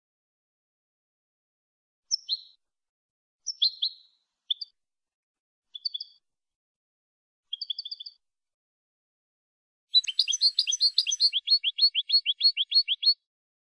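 European goldfinch singing. After about two seconds of silence come short separate twittering phrases every second or two, then near the end a fast run of quick repeated notes lasting about three seconds.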